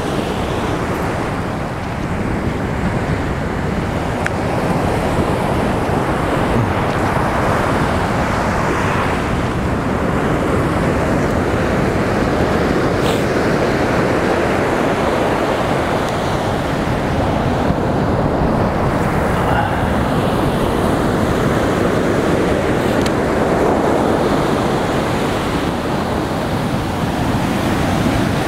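Ocean surf breaking on a sandy beach, a steady wash of noise that holds its level throughout.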